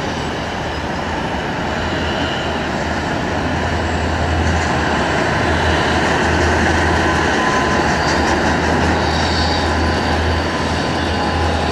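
Jet aircraft engine noise across an airport apron: a steady loud rush and low rumble with a faint thin whine, growing a little louder about four seconds in.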